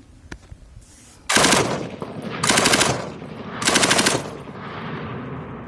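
Type 97 machine gun firing three short bursts of automatic fire, about a second apart, with the report echoing away after the last burst.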